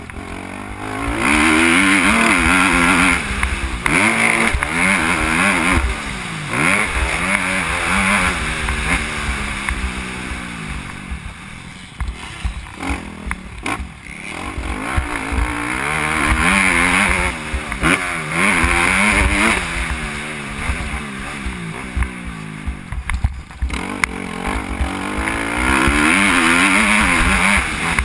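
Motocross bike engine heard from on board, revving hard and climbing in pitch through the gears, then dropping off as the throttle is closed for corners, several times over, with scattered knocks and rattles from the bike over bumps.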